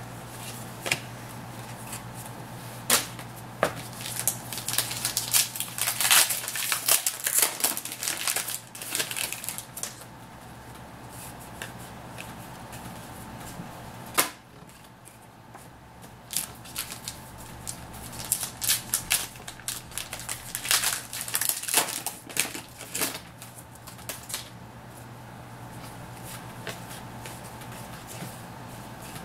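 Trading cards and foil pack wrappers being handled: bursts of crisp flicking, clicking and crinkling as cards are sleeved and sorted, with one sharp knock about halfway through, over a steady low hum.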